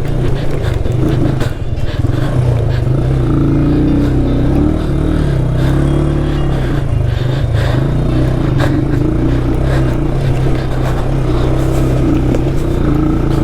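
Off-road vehicle engine running steadily at low, even revs while crawling over a rocky trail, with a rough rumble underneath.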